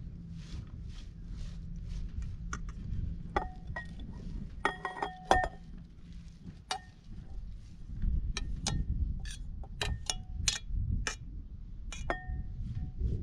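A spoon clinking and scraping against bowls while chopped watercress is mixed and spooned from one bowl into another. It starts as soft, rhythmic rustling strokes, then turns into a long run of sharp clinks that ring briefly.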